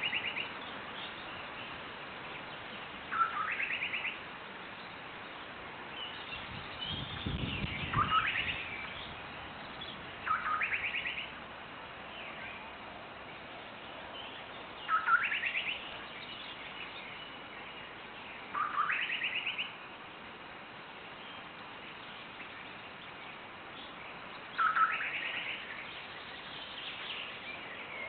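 A bird repeating a short trilled call that rises in pitch, about once every four seconds, with fainter calls from other birds between.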